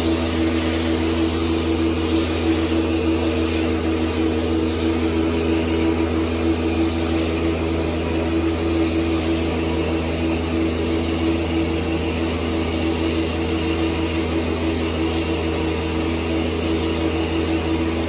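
Hot-water carpet extraction machine running steadily as the cleaning wand passes over carpet: a constant motor drone under the hiss of suction at the wand.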